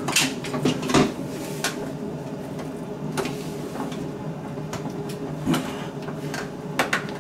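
Scattered plastic clicks and knocks as the ice maker's wiring connector and plastic parts are worked loose by hand inside a Maytag side-by-side refrigerator's freezer compartment, over a steady low hum.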